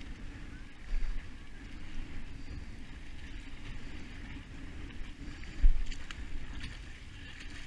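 Wind rumbling on a body-worn action camera's microphone, over splashing from people wading through shallow pond water. There is a sharp low bump about three-quarters of the way through.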